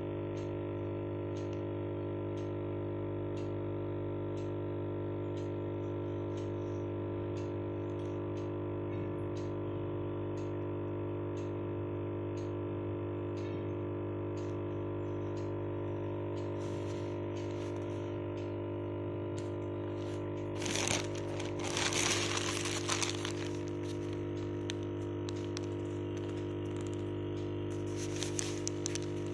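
Steady electric hum from a small aquarium pump or filter motor, several even tones that do not change. Faint ticks come about once or twice a second. A burst of rustling noise comes about two-thirds of the way through, and a few short clicks come near the end.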